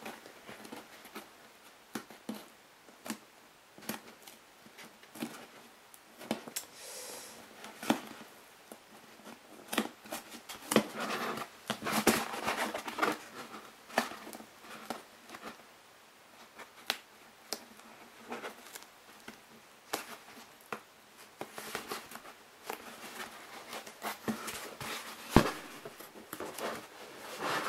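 Hands rubbing and pressing soft foam mask panels together along a glued seam: scattered rustling and small clicks, with one sharper knock near the end.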